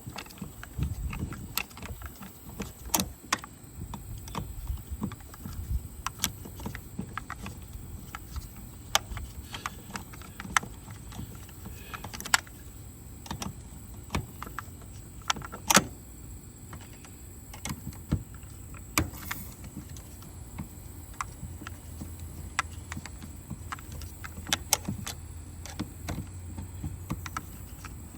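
Scattered clicks, taps and clatter of tools and parts being handled at irregular intervals, with some low thumps and rumbles.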